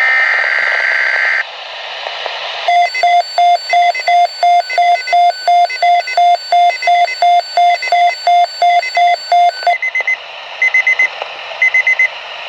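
A weather radio receiving an alert: a short loud screech of digital alert-code tones, a moment of radio hiss, then the receiver's alarm beeping rapidly, about three beeps a second for some seven seconds, followed by a few clusters of quick, higher beeps.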